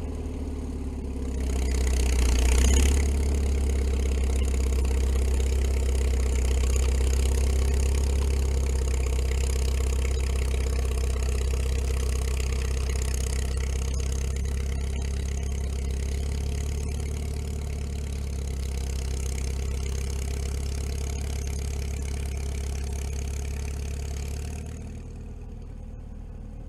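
Engine of a 1940 International Harvester T-9 crawler tractor running steadily under load as it drags a large tree through deep snow. It picks up about a second and a half in and drops off near the end.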